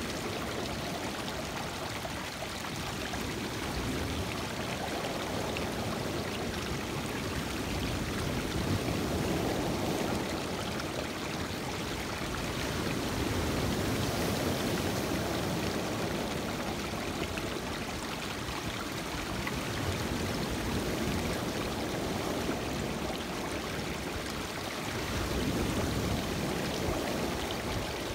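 Lake Michigan waves breaking and washing over a rocky, cobbled shore, water rushing and trickling between the stones. The rush swells every five or six seconds as each wave comes in.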